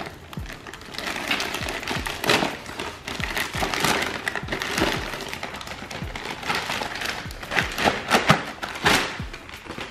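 Plastic poly mailer bag being ripped open and crumpled by hand: continuous crinkling and rustling with sharp tearing crackles, loudest a little after two seconds in and again around eight to nine seconds in.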